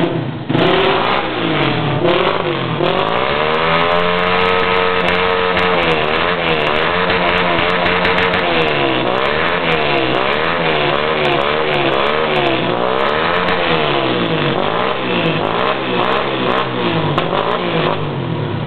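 Honda CG 125 Titan single-cylinder motorcycle engine with a popping 'estralador' exhaust, being revved. The revs climb and hold high a few seconds in, then are blipped up and down about once a second, with sharp crackles and pops from the exhaust throughout.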